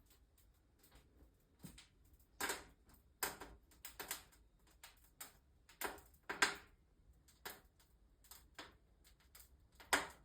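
Wood fire crackling in a fireplace: irregular snaps and pops, several louder ones among many faint ticks.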